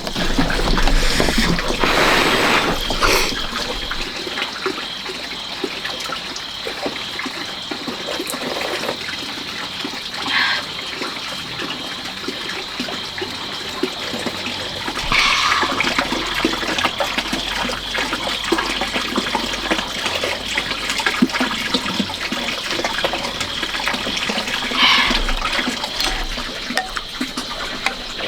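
Water running and trickling steadily, with a few short louder bursts.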